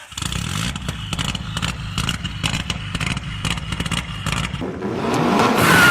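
Mitsubishi Lancer Evolution rally car's inline-four engine running hard, with a rapid string of sharp pops and clatter. About four and a half seconds in it gets louder, the engine pitch rising and falling as it revs.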